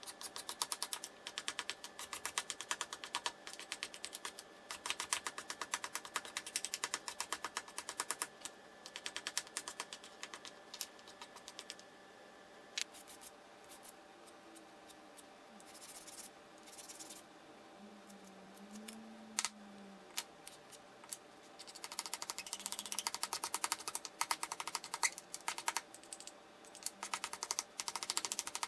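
Hand-held sanding block rubbed quickly back and forth over a small wooden toy-car part, a rapid run of scratching strokes. The strokes stop for several seconds near the middle, then start again.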